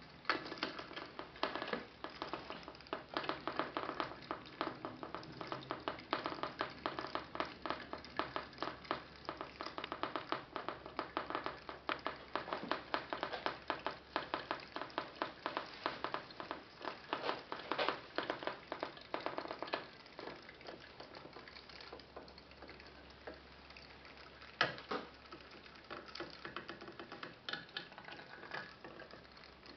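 Modified putt-putt (pop-pop) steam boat running, its quartz test-tube boiler and exhaust tubes making a fast, irregular crackle of small pops. The popping thins out and grows quieter after about twenty seconds, with one louder pop a few seconds later.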